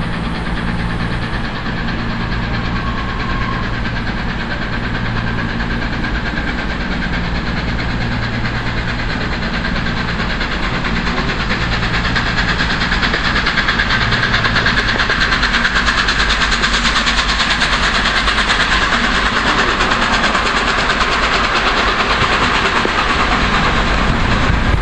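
Peppercorn A1 steam locomotive Tornado and its train running through the station, growing louder from about halfway through. A steady low hum fades out around the same time.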